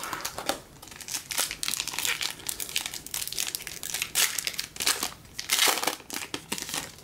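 A trading-card pack wrapper crinkling as it is torn open and pulled off the cards, with irregular crackly bursts that are loudest around four seconds in and again just before the end.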